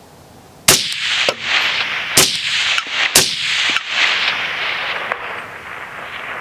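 Three 5.56 rifle shots fired in quick succession, about a second and a half and then a second apart, each followed by a long rolling echo off the hills. Fainter sharp cracks come between and after the shots.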